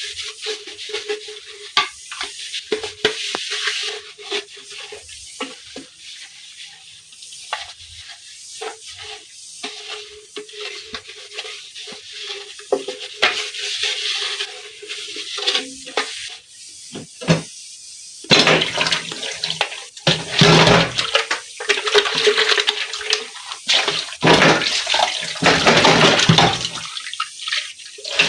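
Washing up at a kitchen sink: scattered clinks and knocks of utensils being handled, then from about two-thirds of the way through, tap water running and splashing over them in uneven bursts.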